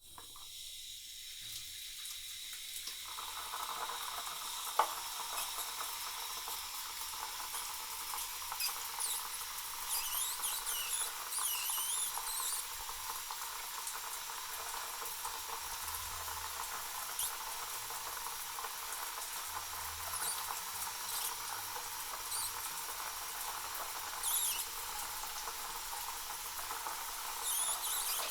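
Electric shower head with a built-in heater running: a steady hiss of water spray that builds up over the first few seconds. A single sharp click about five seconds in, and scattered high squeaky chirps come and go.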